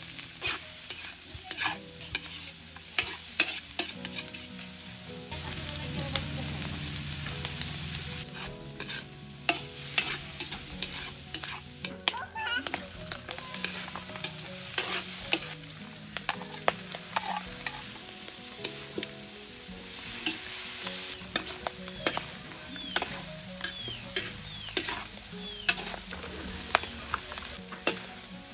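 Metal spatula scraping and clacking against a large steel wok, with frequent sharp clicks, as pork belly and vegetables stir-fry and sizzle over a wood fire.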